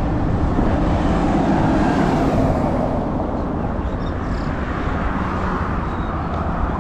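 Steady road traffic noise: the even rumble of a car moving along a busy road.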